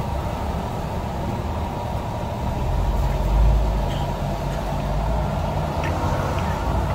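Road traffic: a steady rumble of passing vehicles, with a heavier vehicle swelling past about three and a half seconds in. A few light clinks near the end.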